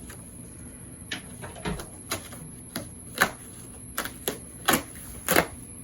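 A cardboard package being opened and handled: about ten sharp, uneven snaps and clicks, some louder than others, spread across a few seconds.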